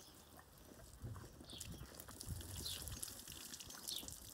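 Hands working shampoo foam into a wet Bernese Mountain Dog's coat: soft, wet rubbing and rustling. A short, high, falling chirp repeats about once a second.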